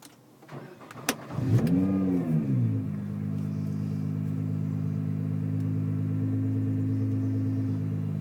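Nissan GT-R R35's twin-turbo V6 through a non-resonated aftermarket exhaust, starting up. After a sharp click, the engine catches about a second and a half in, flares up in revs and falls back, then settles into a steady idle.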